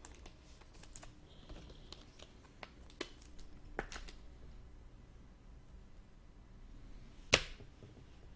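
Trading cards being handled: soft rustles and small clicks as cards slide over one another, with one sharp click about seven seconds in.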